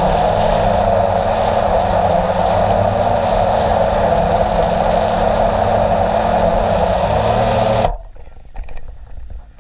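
Multirotor drone's motors and propellers running steadily, heard from the camera on the drone itself, then cutting off abruptly about eight seconds in as the drone is taken down by hand.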